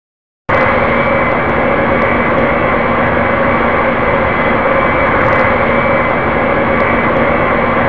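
Airliner cabin noise in flight, heard from inside the cabin: a steady rush of engine and airflow with a constant drone of several tones. It starts abruptly about half a second in.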